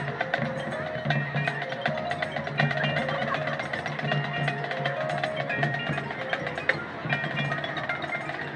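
Marching band music led by the percussion: mallet instruments such as marimba, xylophone and bells play short running note patterns over a sustained low tone, with many sharp wood-block clicks.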